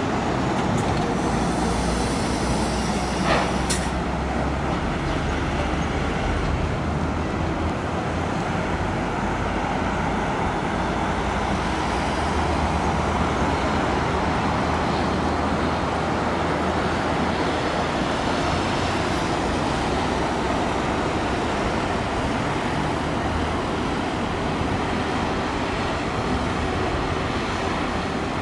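Steady engine rumble mixed with constant broad noise, with one short sharp sound about three seconds in.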